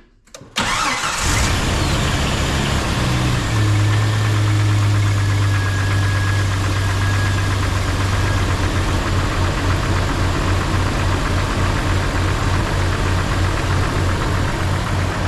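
1995 Jeep Wrangler's 4.0 inline-six started from cold about half a second in, on its first start after an oil change with a pre-filled filter, and running at a steady idle. In the second half the idle takes on an even, rhythmic pulse.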